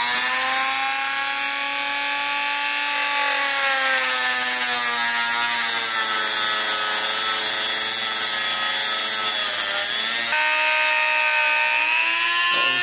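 Dremel rotary tool spinning a sanding drum against a cast-aluminium motorcycle triple clamp: a steady motor whine with the grit rasping on the metal. About ten seconds in, the whine steps up in pitch as the tool speeds up.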